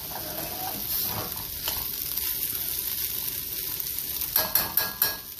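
Sweet corn frying in butter in a pan over high heat, a steady sizzle, with a few short clicks near the end.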